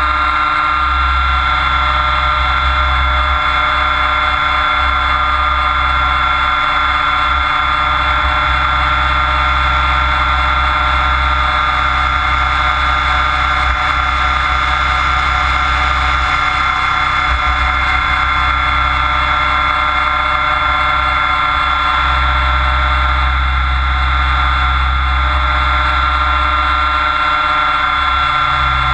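Mikado Logo 600SX electric RC helicopter in flight, heard from on board: a steady whine from the motor and drivetrain over a low rotor drone that swells and fades at times.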